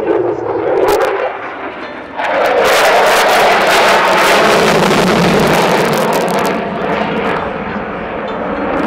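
F-16 fighter jet passing low, its jet noise jumping abruptly louder about two seconds in and staying loud and crackling, then easing a little near the end.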